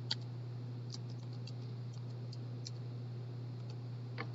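A few light, scattered clicks of computer keys being pressed, over a steady low electrical hum.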